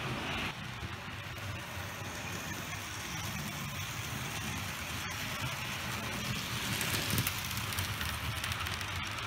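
Bachmann 2-8-2 Mikado model steam locomotive with a can motor running along the track: a steady motor hum with wheels rattling on the rails. It gets louder, with quick fine clicking, about two-thirds of the way in as it passes close.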